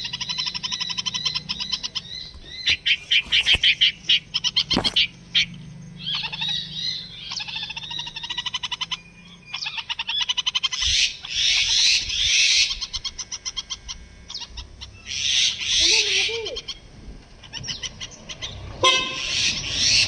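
Bulbuls calling in repeated bouts of rapid, high-pitched chattering near their nest of chicks: agitated calls at the nest being disturbed.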